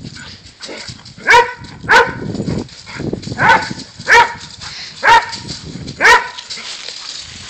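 A dog barking: six loud, sharp single barks at irregular intervals, about half a second to a second and a half apart.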